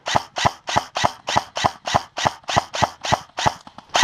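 Airsoft rifle firing single shots in quick succession, about three a second, with a short run of fainter ticks near the end before the shots resume.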